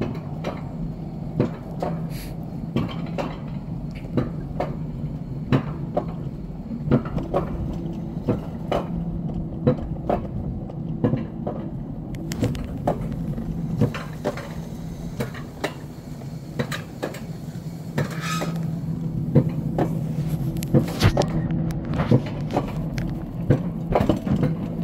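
Alpine coaster car being hauled up the lift section of its track: a steady low hum with repeated sharp clacks, about one or two a second, from the car and track.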